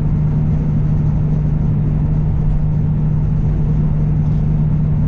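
Kenworth W900L semi truck cruising at highway speed, heard from inside the cab: a steady engine drone with a constant low hum over road rumble.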